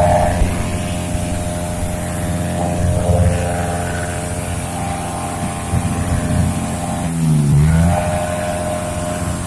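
Honda CB motorcycle engine revved flat out and held at high revs. About seven seconds in, the revs drop briefly and climb back up.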